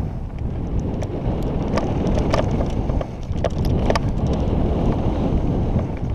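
Wind rumbling on a helmet-mounted camera microphone as a mountain bike rolls fast down a dirt and gravel trail, with tyre noise and scattered sharp clicks and rattles from the bike over the rough ground.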